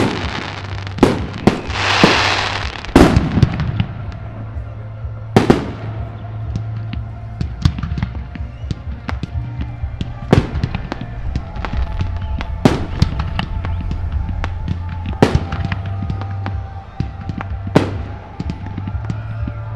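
Aerial fireworks bursting: loud sharp bangs every one to three seconds, with many smaller crackles between them and a rushing hiss about two seconds in.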